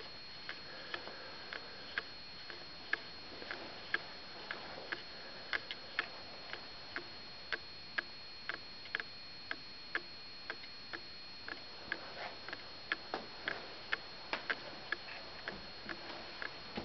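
Steady light ticking, about two ticks a second, over a faint high steady whine.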